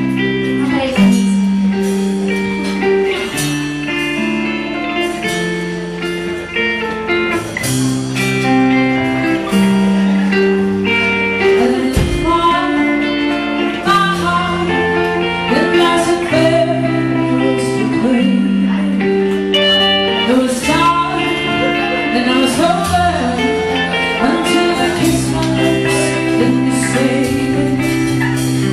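Live band playing a pop ballad: held chords on guitar and keyboard over bass, changing every second or two, with a woman's singing coming in about twelve seconds in.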